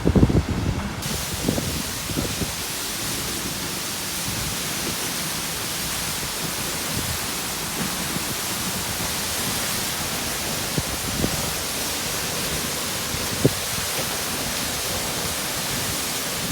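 Waterfall: a steady, even rush of falling water that comes in suddenly about a second in. Wind buffets the microphone at the start, and a few brief low knocks sound later.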